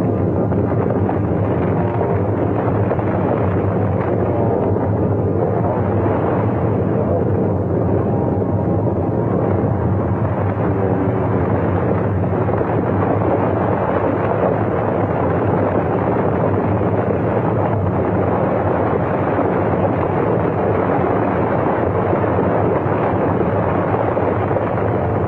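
Steady, loud rumbling noise, a film sound effect.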